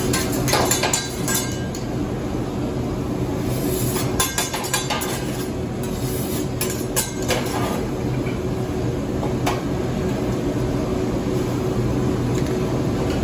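Metal spatula clinking and tapping on a teppanyaki flat-top griddle, a scattering of sharp clinks over a steady background hum.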